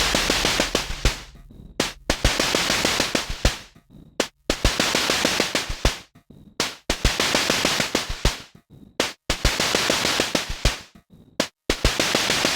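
Elastic Drums, an iPad drum synthesizer app, playing a preset's electronic drum pattern. Long hissing hits repeat about every two and a half seconds, broken by sudden gaps, over dense rapid clicks.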